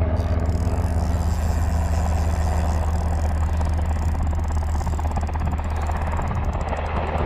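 Cal Fire firefighting helicopter flying on a practice run, its engine and rotor making a steady low drone with a fast, even chop.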